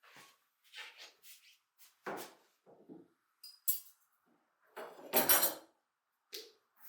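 Cutlery and dishes clinking and scraping in a series of separate small knocks, the longest and loudest about five seconds in.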